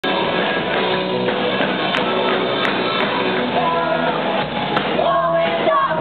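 Live rock band playing amplified electric guitars, with a voice singing over them from about halfway through.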